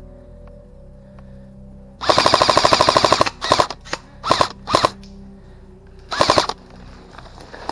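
Airsoft rifle firing on full auto: one burst of about a second and a half, three short bursts, then another short burst near the end.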